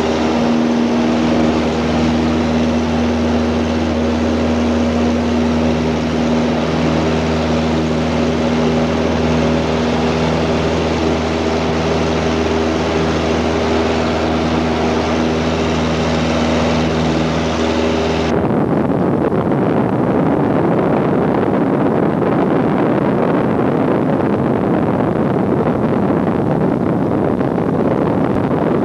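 Airplane cabin noise: the engines make a steady drone with several held tones. About two-thirds of the way through it changes abruptly to an even rushing noise without the tones.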